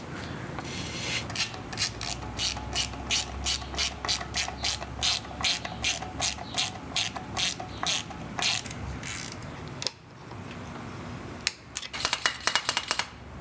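A ratchet clicking steadily, about three sharp clicks a second, pausing briefly, then a quicker run of clicks near the end.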